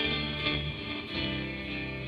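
Live rock band playing an instrumental passage without vocals: electric guitar over sustained low bass notes, which change about a second in.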